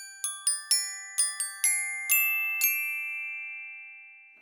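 A short glockenspiel-like chime flourish: about ten quick, bright struck notes in the first three seconds, the last ones ringing on and fading away.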